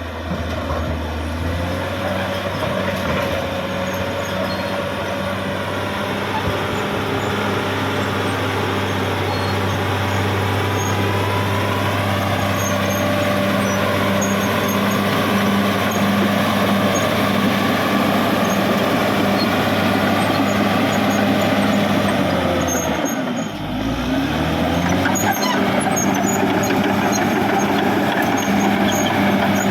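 Caterpillar D6R XL bulldozer's diesel engine running steadily under load. About 23 seconds in, its note drops sharply and then climbs back up.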